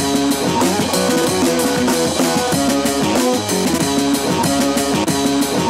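Background music: an instrumental track with guitar and drums.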